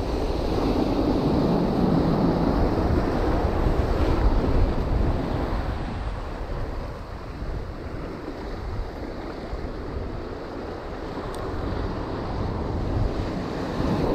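Ocean surf breaking and washing up over a rocky beach, with wind buffeting the microphone. The wash swells over the first few seconds, eases off, and builds again near the end.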